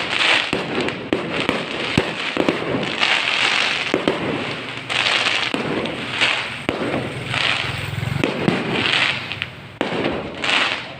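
Fireworks display going off: sharp bangs and crackling bursts in quick succession, swelling in loud crackling waves every second or two.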